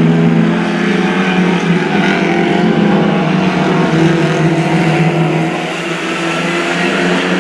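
Several Lightning Rod oval race cars lapping together, their engines held at high revs, with several engine notes overlapping and drifting slowly up and down.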